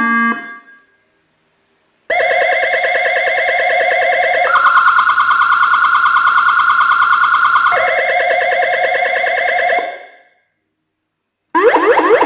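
YUANHAO CJBWX-AS92-P5 100 W electronic siren sounding through its speaker, cycling between tones. A buzzy, fast-pulsing electronic tone starts about two seconds in, steps up in pitch for about three seconds, drops back, and stops. Near the end a new pattern of rapid repeated rising sweeps begins.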